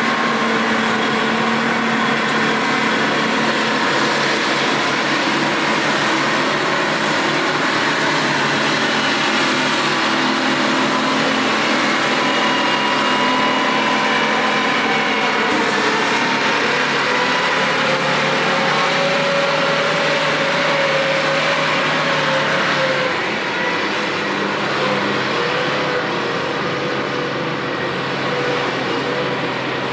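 Terex TS-14B scrapers' Detroit Diesel 4-71 two-stroke engines running hard as the machines cut and haul dirt, with the engine pitch wandering up and down. The sound gets a little quieter about three-quarters of the way through as a machine pulls away.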